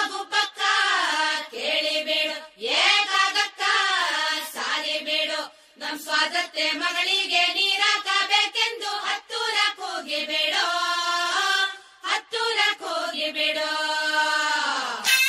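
A high singing voice sings a slow, gliding melody in long phrases, with little or no accompaniment. Right at the end, fuller instrumental music comes in suddenly.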